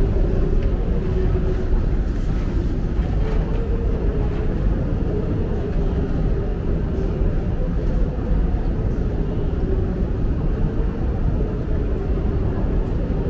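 Long, deep metro escalator running: a steady low mechanical rumble with a steady hum from its machinery.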